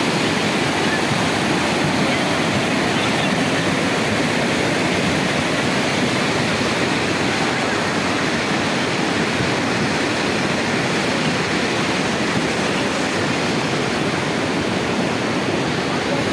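The Ganga, here the glacial Bhagirathi river, rushing steadily in a dense, even wash of water noise.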